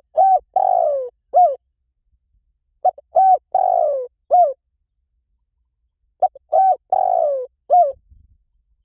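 Spotted dove cooing in three identical phrases about three seconds apart. Each phrase is a short coo, an arched coo, a longer falling coo and a short closing coo.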